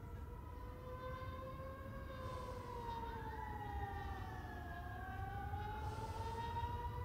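Several emergency-vehicle sirens sounding faintly together, their slow wails rising and falling and crossing one another, over a low rumble.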